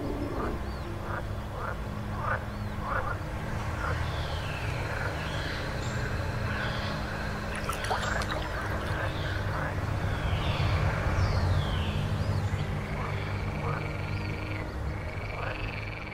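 Eerie haunted-swamp horror ambience: a steady low drone under frog-like croaks and creaky gliding creature calls, fading out at the very end.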